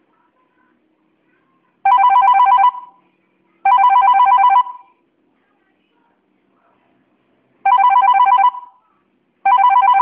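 Telephone ringing with an incoming call: a warbling electronic ring sounding in pairs, two rings less than a second each, a pause of about three seconds, then two more.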